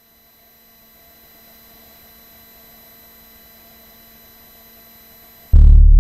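Faint steady electrical hum and hiss from the audio gear, then about five and a half seconds in a loud, deep synthesizer tone from a Korg Electribe 2 comes in suddenly and holds.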